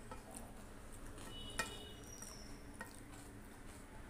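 Faint clinks of a stainless steel bowl against a steel plate as kadhi is poured over rice. The loudest clink, about one and a half seconds in, has a brief metallic ring.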